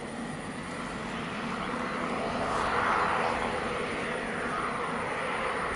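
Twin turboprop engines of a Beechcraft King Air 350i running at taxi power: a steady turbine whine and propeller drone that swells a little about three seconds in.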